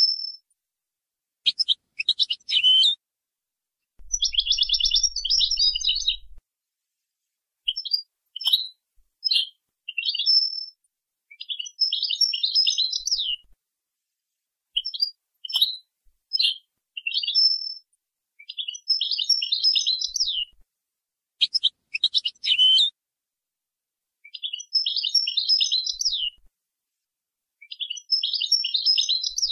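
European goldfinch singing a song in the Moroccan Boujaad 'jnanat' style: phrases of quick high chirps and fast twittering trills, separated by short silent gaps.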